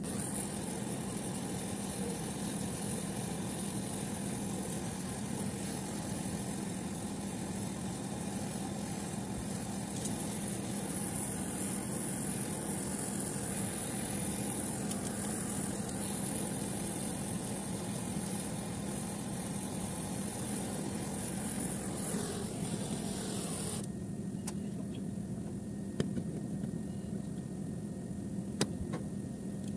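Steady drone of running machinery with a constant low hum. A high hiss over it cuts off suddenly about 24 seconds in, and a few sharp metallic clicks come near the end as locking pliers work on a filter drier.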